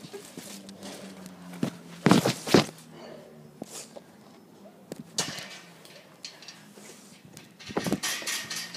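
Footsteps and scuffs of a person moving fast while carrying a phone, with sharp knocks of handling on the microphone, the loudest pair a little after two seconds in.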